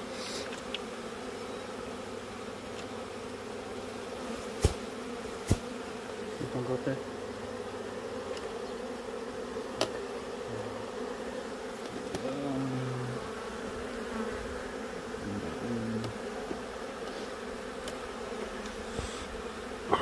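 A honeybee colony buzzing in a steady hum around an opened hive, with two sharp clicks about five seconds in.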